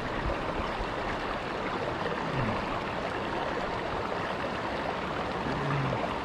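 Shallow rocky creek running over stones: a steady rush of flowing water.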